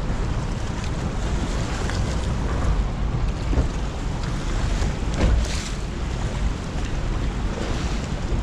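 Wind buffeting the microphone over rough, churning water running below the dam during a release, with a steady low rumble. A louder gust or wave surge comes about five seconds in.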